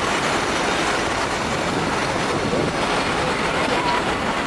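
Goods train of tank wagons and hopper wagons rolling past on the rails, a steady noise of wheels and wagons.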